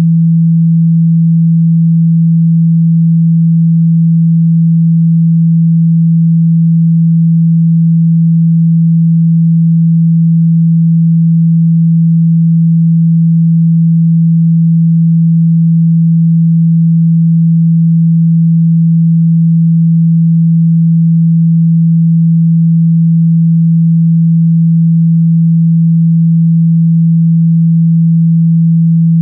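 A steady, loud, low pure tone held without change, a speaker-cleaning tone made to vibrate water and dust out of a phone speaker.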